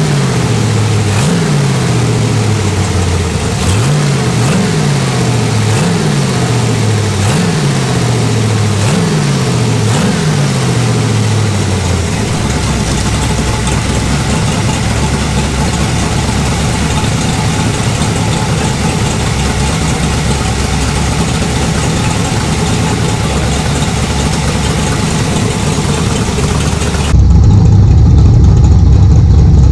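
Freshly built 350 Chevy small-block with a Comp Cams 294S solid-lifter cam running on a test stand through open stainless headers and a muffler. For the first dozen seconds the revs climb and drop back about every second and a half, then the engine holds a steady speed. It is louder and deeper near the end.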